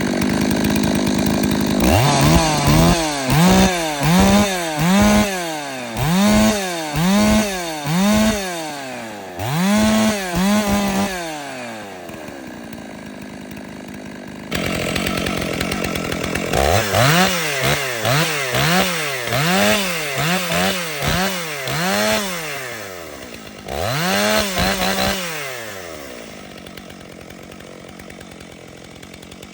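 Two stock two-stroke chainsaws, a Stihl and a Holzfforma, each idling and then revved in a quick series of throttle blips, each rev rising and falling back. The first saw revs from about two seconds in; the second takes over about fourteen seconds in and revs the same way before settling back to idle.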